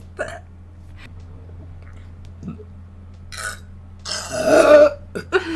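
A person burps loudly once, about four seconds in, the burp lasting most of a second. A shorter, quieter sound comes just before it. A steady low hum runs underneath.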